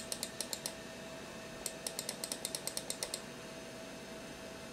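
Mouse button clicked rapidly and repeatedly on a Macintosh scroll arrow: a short run of about seven clicks, then after a pause of about a second a longer run of about a dozen. A steady hum runs underneath.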